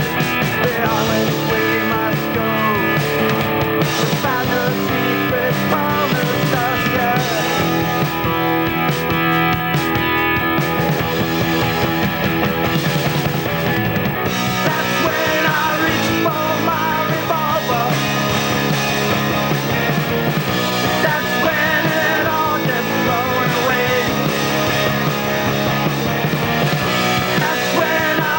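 Rock music playing steadily, with a full band sound.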